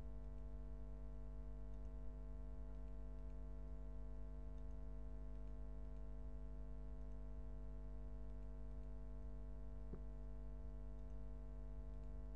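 Steady electrical mains hum on the recording, with two faint clicks, one about two seconds in and one near the end.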